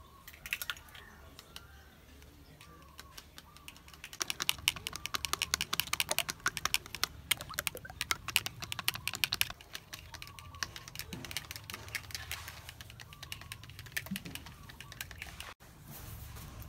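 Metal spoon beating raw chicken eggs in a small bowl: a fast run of clicking strokes against the bowl for about five seconds, then slower, scattered taps.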